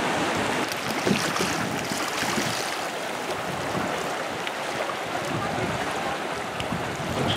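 Sea surf washing in steady rushes around basalt rocks along the shore.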